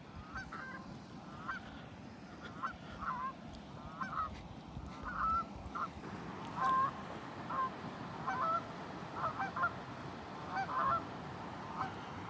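Wild geese honking: a series of short calls, about one a second, louder in the second half, over a steady low rush.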